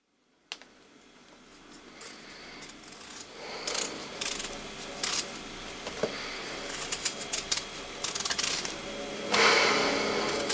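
Knife peeling a raw potato: short, irregular scraping strokes of the blade through the skin, growing louder, with one longer scrape near the end.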